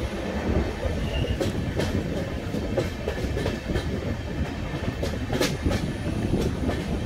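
Express train coaches running along the track: a steady low rumble of wheels on rail, with scattered sharp clicks over the joints and a brief high squeal about a second in.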